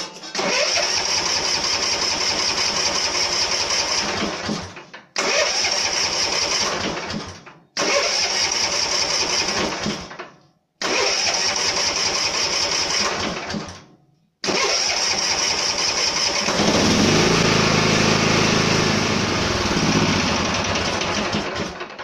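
Murray riding mower's electric starter cranking the engine in four separate bursts of two to four seconds each, the starter now working with a newly fitted solenoid. On the fifth try, about fifteen seconds in, the engine catches and runs, its pitch falling near the end.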